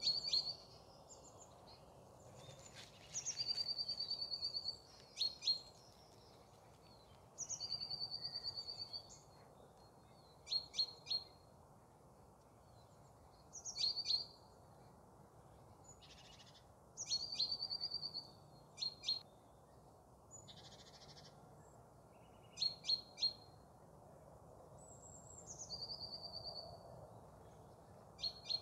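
Bohemian waxwings calling: high, ringing trills about a second long, repeated every few seconds, with short high chirps in twos and threes between them.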